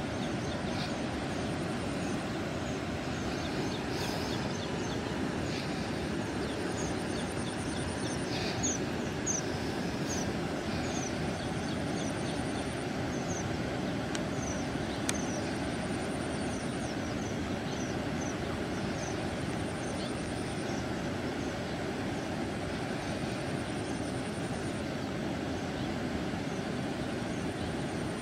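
Steady low outdoor rumble of pond ambience. Between about 6 and 14 seconds in come a run of short, high, falling chirps from small birds, and a thin high buzz comes and goes every few seconds.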